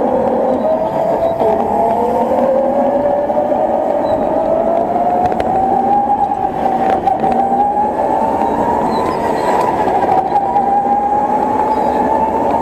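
Go-kart being driven on the track, its engine note climbing steadily in pitch as the kart gathers speed, with a brief drop about a second and a half in.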